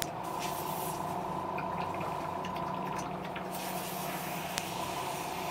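Small airbrush air compressor running with a steady hum. The airbrush seems to be losing air pressure.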